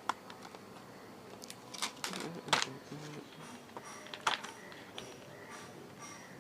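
Cardboard packaging of a USB Wi-Fi adapter being opened and handled: scattered clicks and rustles, the sharpest about two and a half seconds in.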